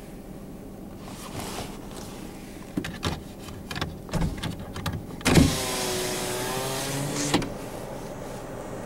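A car's electric window motor runs for about two seconds, starting with a loud thump a little over halfway in and whining with a slight drop in pitch before it stops. A few knocks and clicks come before it.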